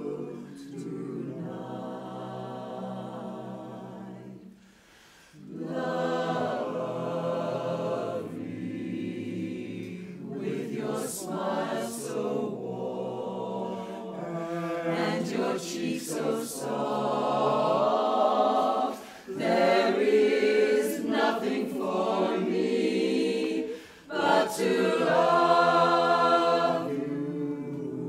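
Mixed-voice barbershop chorus singing a cappella in close harmony, sustaining chords, with short breaks between phrases, the longest about five seconds in.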